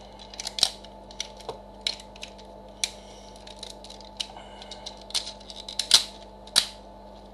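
Plastic parts of a Transformers toy trailer clicking and snapping as they are swung and folded into place by hand: a string of irregular sharp clicks, with a few louder snaps near the end.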